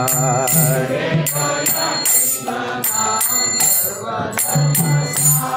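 Devotional kirtan singing: a male voice draws out the last sung word, then karatals (small brass hand cymbals) ring out in a steady rhythm over a low accompaniment through the instrumental break between verses.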